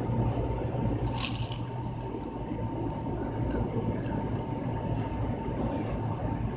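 Close, wet chewing of a person eating a double cheeseburger, over a steady low hum. A short, sharp noise comes about a second in.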